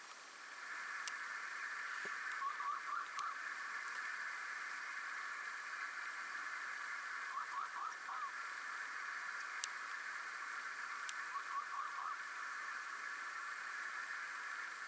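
A dense chorus of frogs or toads calling together as one steady band, growing louder about a second in. A few times, short runs of separate rising notes stand out from it. A few sharp isolated clicks.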